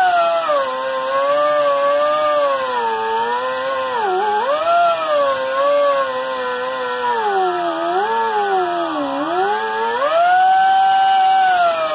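A high-speed handheld power tool's motor running loud and steady, its pitch sagging each time it is pressed into the work, deepest about four and nine seconds in, then climbing back to full speed near the end.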